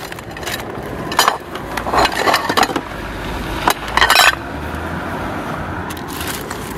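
Hands rummaging through bags of discarded household things: plastic carrier bags crinkling while plates and plastic containers inside knock and clink together. It comes in a few short bursts, the loudest about four seconds in, and is quieter after that.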